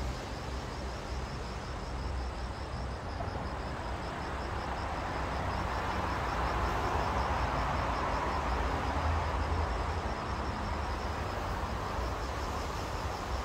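Crickets chirping in an even, rapid pulse over a steady low background rumble. Around the middle, a broad rush of noise builds and fades over several seconds.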